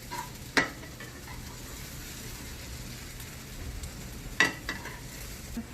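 Fried rice with chicken and egg sizzling in a hot pan as it is stirred and mixed. Two sharp clanks of the utensil against the pan come about half a second in and again about four and a half seconds in.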